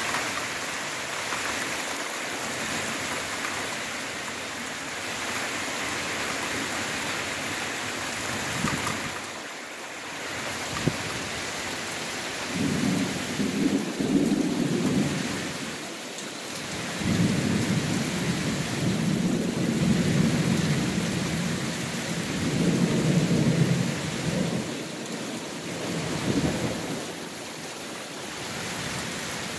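Heavy thunderstorm rain pouring steadily, with thunder rolling in several long low rumbles from about halfway through.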